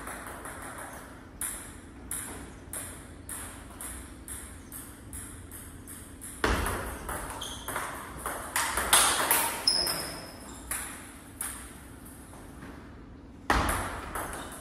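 Table tennis rally: the ball clicking off the bats and the table in a quick back-and-forth, a knock every half second or so, with a few louder knocks.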